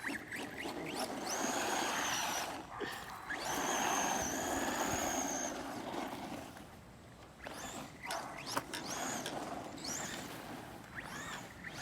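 An RC car's motor whining at a high pitch over a rushing noise. The whine holds steady twice, then rises in pitch several times as the car accelerates.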